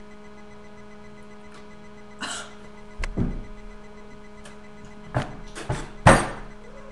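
A boy coughing and sputtering on a mouthful of dry cinnamon and protein powder, about five harsh coughs with the loudest near the end. The dry cinnamon catching in the throat is what brings on the coughing.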